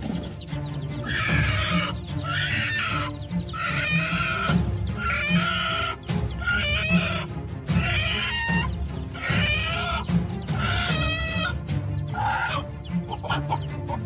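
A domestic hen squawking over and over in alarm, about a dozen calls roughly one a second, as she defends her chicks against an eagle; background music plays under it.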